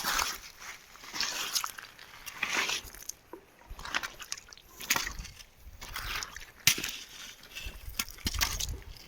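Shallow river water sloshing in uneven surges about once a second, as of someone wading through it. There is one sharp knock about two-thirds of the way through.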